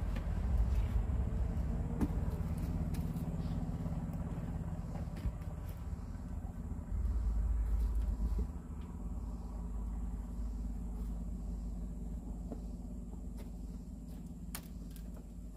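Heavy oak log rolling across timber rails onto a sawmill bunk: a low rumble with a sharp knock about two seconds in, growing louder for a moment around the middle, then fading.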